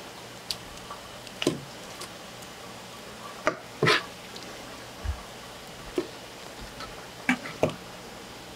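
Scattered wet squelches, clicks and knocks of cuttlefish being handled and cut on a board, about ten short irregular sounds with the loudest pair near the middle.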